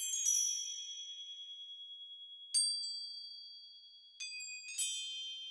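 Very high, glassy chime tones, struck a few at a time and each left to ring out and fade slowly. A cluster sounds at the start, another about two and a half seconds in, and two more near the end.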